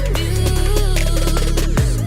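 Electronic dance music with a heavy, wobbling bass and no vocals, with kick drums coming in near the end.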